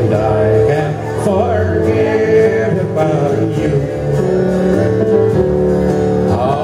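A man singing a slow classic country song into a microphone, backed live by electric keyboard and guitar.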